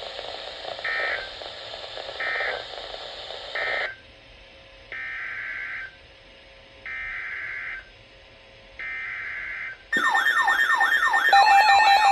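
Emergency Alert System SAME data tones: three short buzzy bursts of end-of-message code over radio hiss, then, once the hiss cuts out about four seconds in, three longer one-second data bursts, the header of the next alert. About ten seconds in, a loud warbling alert tone begins.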